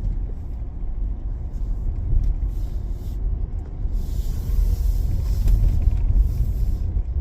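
Car driving slowly, a steady low rumble of engine and road noise, with a hiss that rises for a couple of seconds past the middle.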